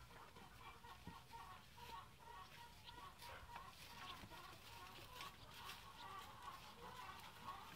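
Faint, continuous clucking of domestic chickens, with a few faint clicks and rustles.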